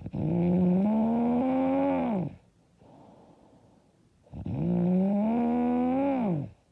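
A woman snoring loud: two long snores of about two seconds each. Each has a held, slightly rising pitch that drops away as it ends, with soft breathing between them.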